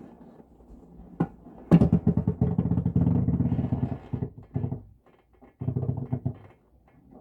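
Wind-blown tree branches scratching and rattling against a frosted skylight: a sharp knock about a second in, then a loud, rapid scratching that runs for a couple of seconds, followed by two shorter bursts.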